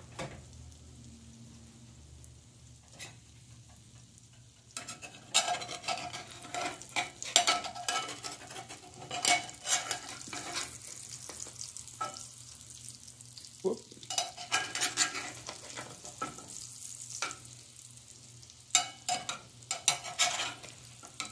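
Egg frying in deep hot fat in a small cast-iron skillet, with a steady sizzle. From about five seconds in, a metal spatula scrapes and clicks against the pan again and again, pausing briefly about two-thirds of the way through.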